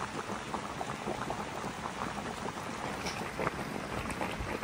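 Spicy broth boiling hard in a large wok with a whole fish stewing in it: a steady, dense bubbling full of small pops.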